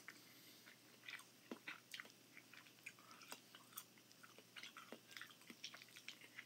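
Faint close-up chewing of a soft mouthful of eggs with ramen noodles and Alfredo sauce, with irregular small wet mouth clicks and a few light clicks of a fork in a glass dish.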